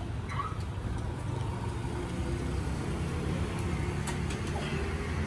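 Low, steady engine rumble of a motor vehicle on the street, growing slightly louder from about two seconds in.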